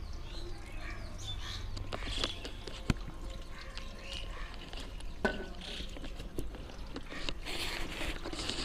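Hot water poured from a metal pot onto a detergent-covered CRT TV circuit board in an aluminium basin, splashing and trickling, heaviest near the end. A single sharp click about three seconds in.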